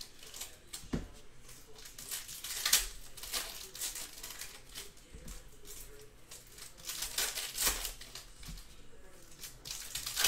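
Foil trading-card pack wrappers crinkling and tearing open in bursts of crackle, with a dull knock about a second in.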